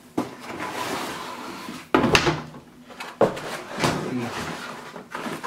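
Cardboard box and molded pulp packing scraping and rustling as they are slid and lifted out of a shipping box, with a few sharp knocks, the loudest about two seconds in.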